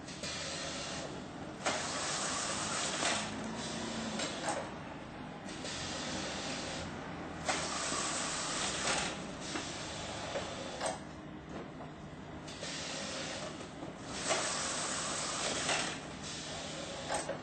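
Best Pack RS22 random case sealer running: a steady drive motor and belt hum, with a hissing burst of a second or so every few seconds as cartons are pulled through and taped, and occasional sharp clicks.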